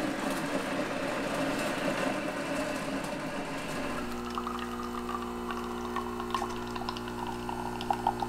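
Bean-to-cup coffee machine brewing: a rough whirring for the first few seconds, then a steady pump hum as coffee pours into a mug, with a few sharp clicks near the end.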